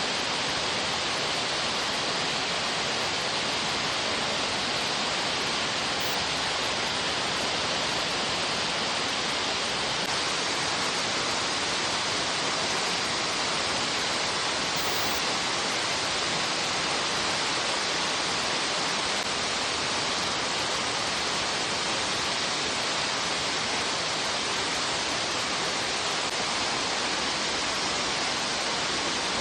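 Steady rushing of a waterfall, an even hiss of falling water that stays the same throughout, with most of its weight high up.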